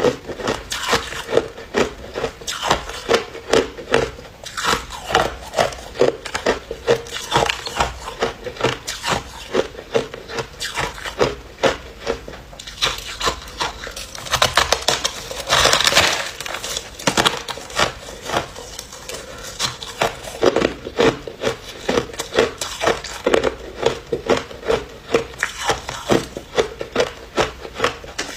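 Ice being chewed close to the microphone: sharp crunches about two a second, with a louder, denser stretch of crunching about halfway through.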